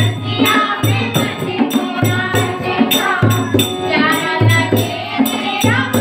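Group of women singing a Hindi Krishna bhajan together, with rhythmic hand clapping and a jingling rattle keeping time. A deep beat sounds about every second and a bit underneath.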